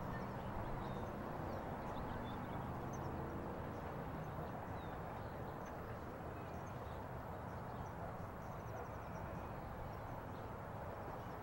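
Distant UH-1 Huey helicopters flying by, their two-bladed main rotors beating in a steady rhythmic thump that fades slightly as they move away.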